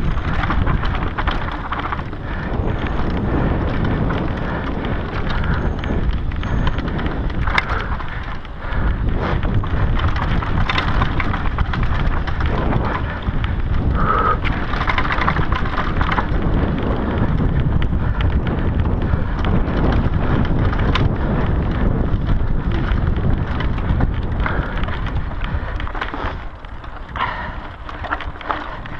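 Mountain bike ridden fast over dry dirt singletrack, heard through a GoPro: a dense rush of wind and tyre noise on the microphone, with frequent knocks and rattles from the bike and camera over bumps. The noise eases somewhat near the end as the pace slows on a climb.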